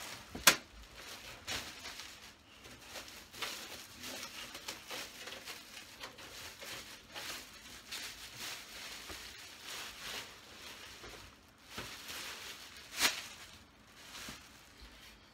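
Plastic wrapping and packing crinkling and rustling as a PC case is unpacked and handled, with a sharp knock about half a second in and another near the end.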